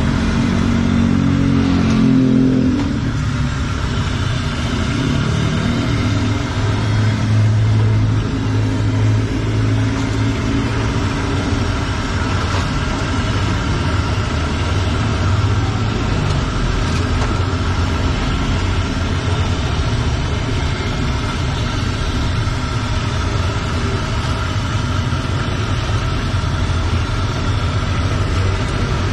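Motorbikes and cars passing on the street, their engines louder in the first few seconds and again around seven to ten seconds in. Under them runs a steady sizzle of battered tempe and tofu deep-frying in a wok of hot oil.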